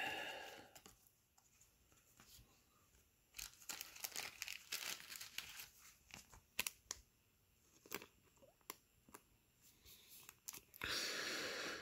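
Faint crinkling and clicking of a soft plastic card sleeve as a baseball card is handled and slid into it, a series of irregular crinkles over several seconds.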